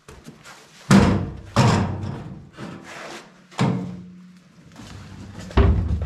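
Wheelbarrow being tipped and knocked against the concrete floor to shake out straw bedding: four loud knocks, each with a short ringing tail.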